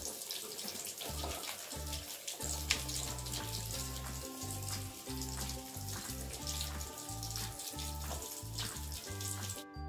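Background music with a bass line stepping through short low notes, over a steady hiss.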